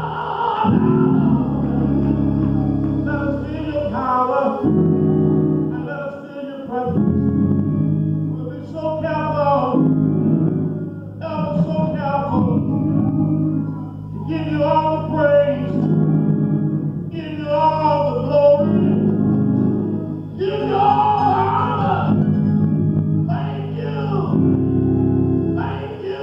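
Gospel-style singing in phrases a few seconds long, over sustained keyboard chords that change every few seconds.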